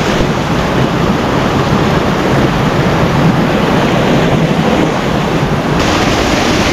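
A mountain stream rushing and splashing over boulders in a narrow rock gorge, a loud, steady flow of white water. The rush turns hissier near the end.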